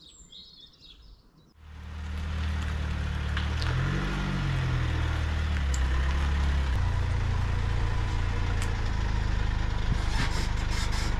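Van engine idling with a steady low drone that starts abruptly about a second and a half in, under a light hiss. Its note rises and falls briefly around four seconds, then settles into a slightly different steady hum. A few faint bird chirps come before it starts.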